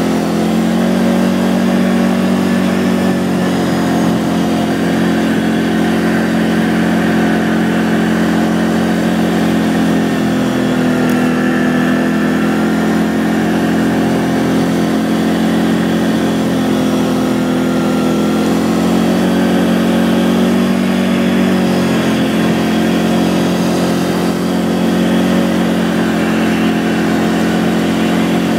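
Can-Am 800R ATV on a track kit, its Rotax V-twin engine running continuously under way, with gentle rises and falls in pitch as the throttle varies.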